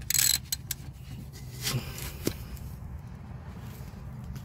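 Rusted front strut bolt creaking and scraping as it is worked with a socket wrench, with a few sharp clicks. The loudest scrape comes right at the start and the sounds fade out after about two seconds. The bolt is being turned back and forth to break the rust free.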